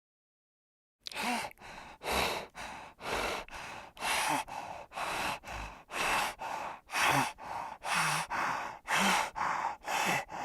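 An animal panting: quick, even, breathy huffs, about two a second, starting about a second in after a moment of dead silence.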